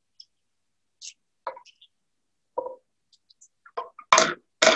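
Garlic cloves being handled on a cutting board: scattered soft taps and clicks, then two louder knocks near the end.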